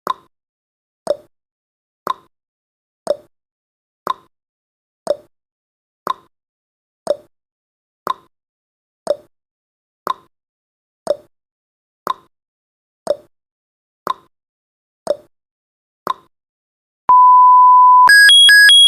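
Countdown timer sound effect: a clock-like tick-tock, one tick a second alternating high and low. Near the end a steady beep lasts about a second, then a quick run of higher electronic beeps marks the timer reaching zero.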